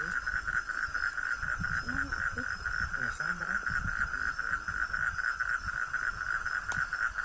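Steady, dense chorus of calling night animals: a constant rapid high-pitched trill, with faint distant voices beneath it.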